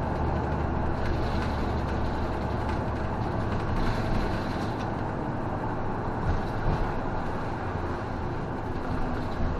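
City bus heard from inside at the front while driving: a steady engine drone with tyre and road noise. The low engine note drops about halfway through as the bus eases off, and there are a few light knocks or rattles near the end.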